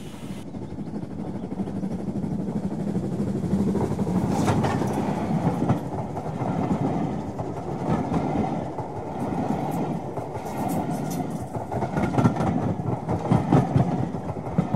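00 gauge model train running along the track: a steady rumble from the wheels, with scattered clicks as they pass over the rail joints.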